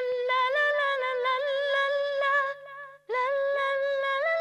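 Music: a long held melodic tone stepping slowly up and down in pitch over light, regular ticks, breaking off briefly about two and a half seconds in and then resuming.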